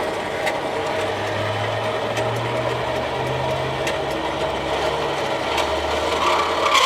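Metal-cutting band saw running on a test after its guides and wheels were adjusted to stop it throwing the blade: a steady motor hum and blade whir, with a higher whine that comes in near the end.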